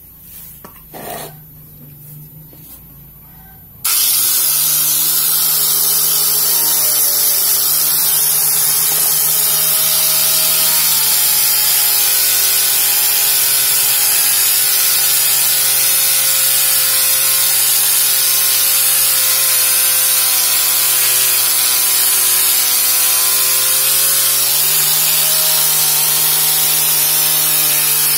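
A few small knocks, then about four seconds in a grinder fitted with a cloth polishing wheel is switched on and runs steadily with a whine while buffing a chrome motorcycle exhaust pipe. The whine drops slightly in pitch for a long stretch in the middle, then rises back.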